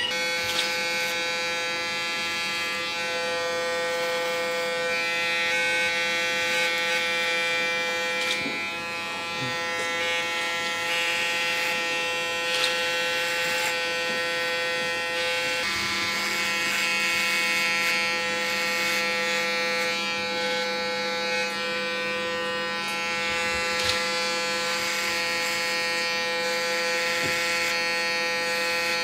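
Electric hair clippers buzzing steadily as they shave short hair at the nape of the neck. The tone of the buzz shifts slightly about halfway through.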